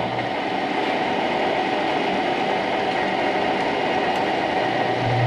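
Machine tool running steadily while cutting a new steel governor cross shaft: a constant mechanical hum with a steady whine, and a deeper hum that drops out just after the start and comes back near the end.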